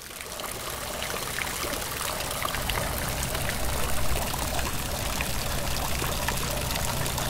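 Stone fountain's water jets splashing into its basin: a steady trickle and patter of falling water.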